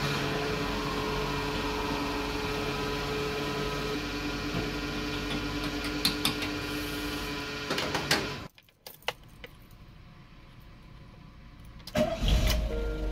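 Fuel pump at a filling station running with a steady hum while fuel flows through the nozzle, with a few sharp clicks near the end. The hum then stops, and after a quiet pause the camper van's engine starts with a loud low rumble near the end.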